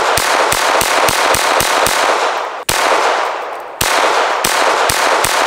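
.22 LR semi-automatic pistol firing a rapid string of shots, about three to four a second, each shot echoing. The string cuts off abruptly about two and a half seconds in and starts again a second later.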